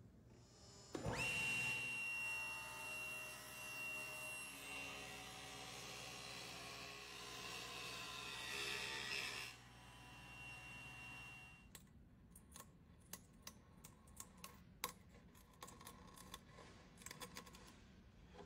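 Table saw motor starting with a rising whine, then running at a steady whine while a hardwood box is pushed through the blade, the cut a loud rushing noise that stops about half a second before the whine cuts off. In the last third, a string of sharp clicks and light scrapes from a chisel paring the wood at the box's corner.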